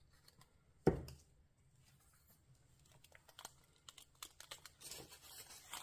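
A single sharp knock about a second in, then faint light taps and rustling as fingers press a glossy paper scrap down onto a plastic shaker pocket.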